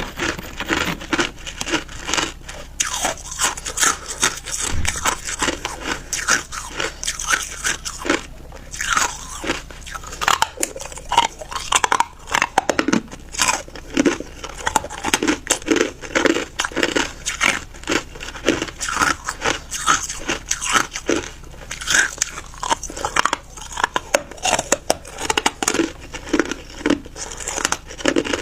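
Ice being bitten and chewed, a fast, uneven string of sharp crunches with no pause.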